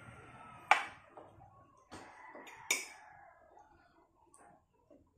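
Metal spoon and fork clinking sharply against a ceramic plate twice, about a second apart and then near the middle, with a few lighter taps in between.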